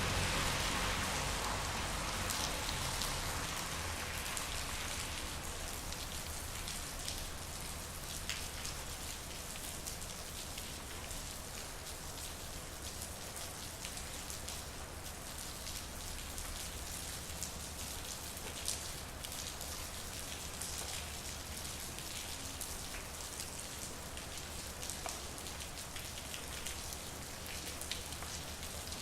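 Steady rain falling on a street, with scattered individual drips and splashes ticking through it. A louder hiss at the start dies away over the first few seconds, leaving an even patter.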